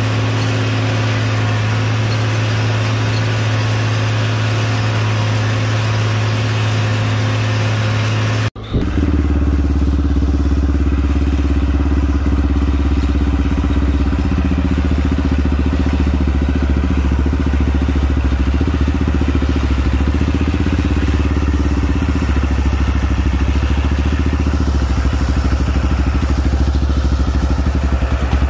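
Oliver 1850 tractor engine pulling steadily under heavy load with a moldboard plow in tough sod. It is heard from the cab at first. After a brief cut about eight seconds in, it is heard from beside the field, lower-pitched and a little louder.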